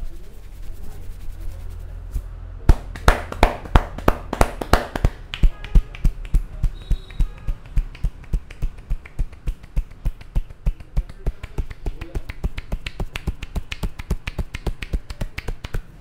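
Hair cracking in a head massage: the barber grips tufts of hair and snaps them between his fingers, making a quick run of sharp cracks about four a second. The cracks start about three seconds in and come a little faster toward the end.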